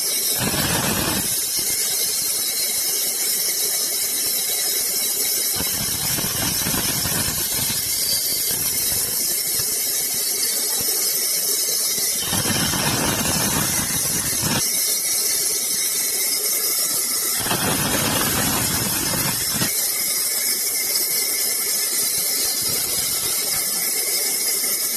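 Sawmill saw running with a steady high-pitched sound, cutting into wood in several passes of about two seconds each, a few seconds apart.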